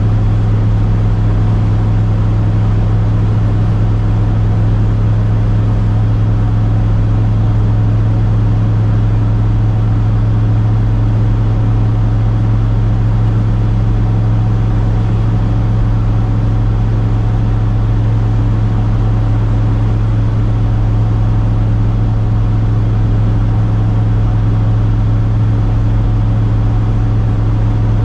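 1973 Ford F350 pickup running at a steady cruise, heard from inside the cab: a constant low engine and exhaust drone over tyre and road noise, with no change in speed.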